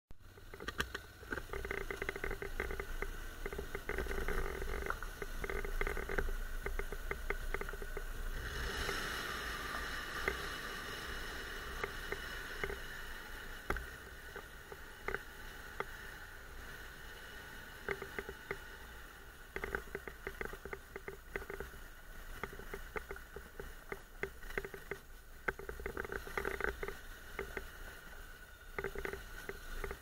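Muffled ride noise from a Honda NC750X parallel-twin motorcycle on a rough gravel lane: a low engine rumble under constant rattling and clicking as the bike and its camera mount jolt over the surface. A louder hiss swells about nine seconds in and fades over the next few seconds.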